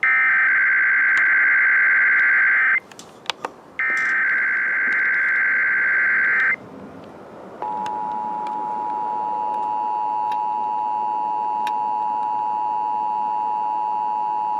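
Emergency Alert System SAME header: two buzzy bursts of digital data tones about a second apart. After a short pause the EAS two-tone attention signal (853 and 960 Hz together) starts about seven and a half seconds in and holds steady, opening a Required Monthly Test.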